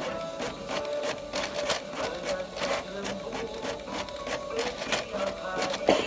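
Canon Maxify inkjet printer printing: the print-head carriage shuttles back and forth with a whirring motor and rapid clicking, and a louder clack comes near the end.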